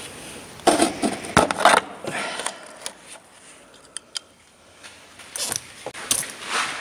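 Hands and hand tools working on metal parts in an engine bay: clinks, short scrapes and rustling. They come in two clusters, about a second in and again near the end, with a couple of single clicks in between.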